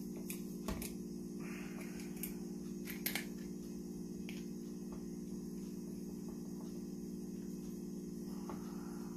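A steady low electrical hum throughout, with a few light clicks and taps from handling a spinning fishing reel, mostly in the first few seconds.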